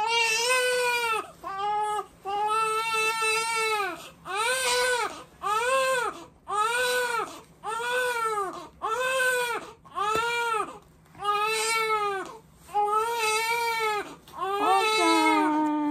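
Newborn baby crying hard in a steady run of about a dozen cries, each about a second long and arching up then down in pitch, with short gaps between them.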